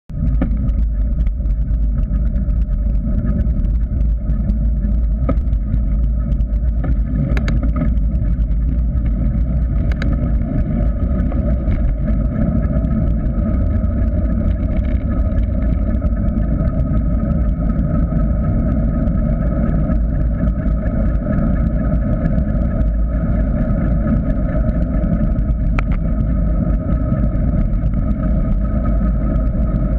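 Wind buffeting the microphone of a bike-mounted GoPro Hero 3 as a mountain bike descends a paved road at speed, a loud steady rumble over a steady hum from the tyres rolling on asphalt. A few sharp knocks come from bumps in the road.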